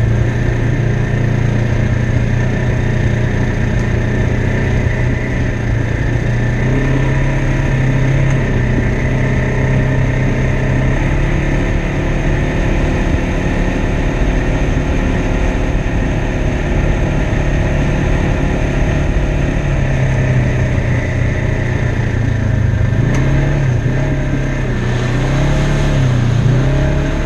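2016 Polaris RZR XP 1000's 999 cc parallel-twin engine running steadily at trail-crawling speed, with the revs rising and falling several times near the end.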